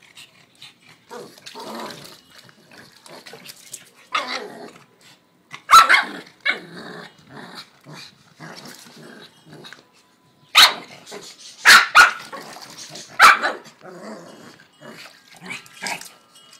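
Small dog growling and giving sharp barks, with several loud barks spread through the middle and second half. She is riled up and getting fierce.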